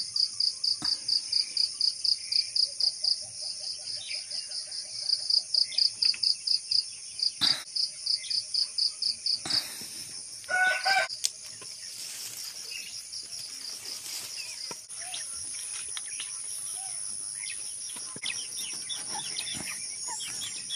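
Insects chirring in a loud, high-pitched drone that pulses about four or five times a second, then runs steadily from about halfway through. Brahma chickens in the coop call over it: a run of clucks a few seconds in and one short, loud call about ten seconds in.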